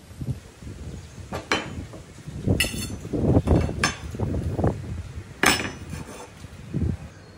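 Metal pipes being set down one after another on a plywood board: a series of clanks and knocks, two of them ringing briefly, with duller thuds in between.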